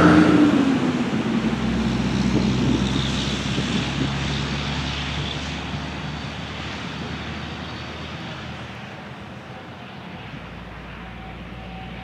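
The Whelen WPS-3016 siren's recorded voice test message ends right at the start. What follows is a steady rushing outdoor noise with no tone or words, fading gradually over about ten seconds.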